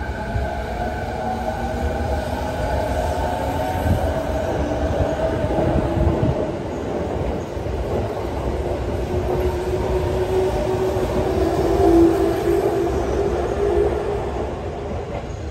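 JR 209-series 500-subseries electric commuter train pulling out of a station and gathering speed. Its motors give several whining tones that shift in pitch, over steady wheel and rail rumble, loudest about three-quarters of the way through as the cars pass close by.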